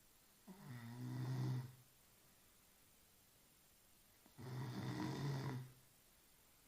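A sleeping woman snoring: two snores about four seconds apart, each a low buzzing rasp lasting about a second and a half.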